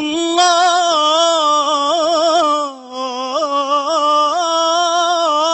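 A man singing an Islamic praise song (inshad) unaccompanied, holding a long wordless melismatic phrase with quick ornamental trills, broken by a short breath near the middle.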